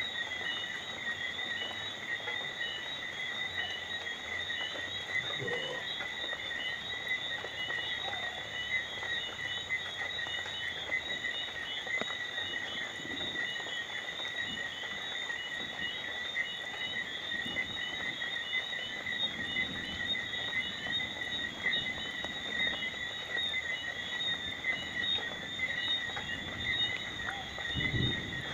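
Night chorus of calling frogs and insects: a continuous high trilling at two pitches, one pulsing in a fast even rhythm, over a soft steady hiss of falling rain.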